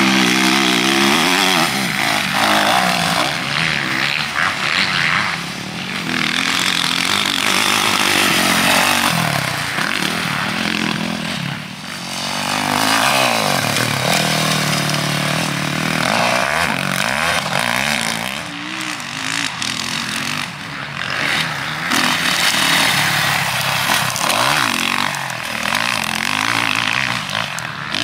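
Motocross bike engine revving hard and easing off again and again, its pitch climbing and dropping with throttle and gear changes, over a steady rushing noise. It briefly goes quieter about twelve seconds in.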